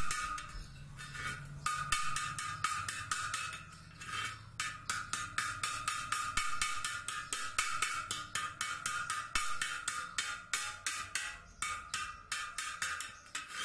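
Sandpaper scrubbing rust off the inside of a steel motorbike wheel rim in quick back-and-forth strokes, about four rasps a second.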